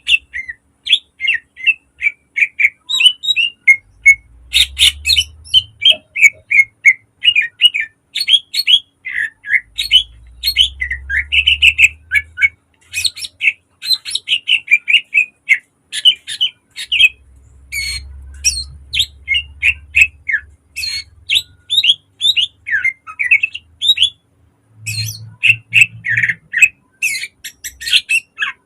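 Cucak ijo (green leafbird) singing a rapid, unbroken string of short, sharp notes.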